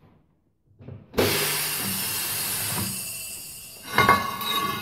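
A tyre changer's pneumatic clamps releasing with a loud air hiss that starts suddenly and fades, then the bare alloy motorcycle rim clanking and ringing against the machine's clamps as it is lifted off, about four seconds in.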